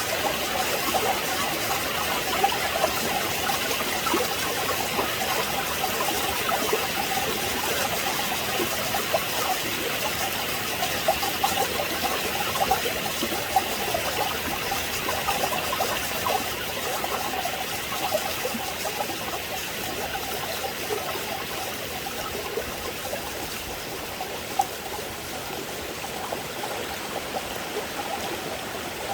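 Mountain valley stream running and trickling over rocks, a steady wash of water with many small splashes, growing a little quieter in the second half.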